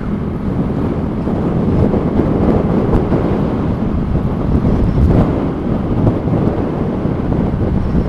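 Strong gusty wind buffeting the microphone of a moving motorcycle, over the Honda Grom's small single-cylinder engine running steadily at cruising speed.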